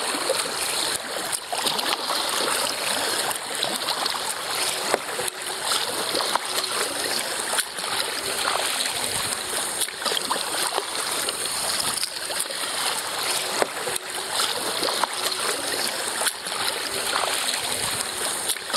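Water splashing and swishing around a 1999 Dagger Redline whitewater kayak as it is paddled, with irregular small splashes from the paddle blades dipping in.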